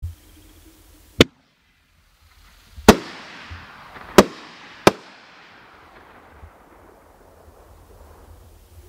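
Triple-break consumer artillery shell fireworks: four sharp bangs, one about a second in and three more between about three and five seconds in, as the shells burst. A hiss follows and slowly fades.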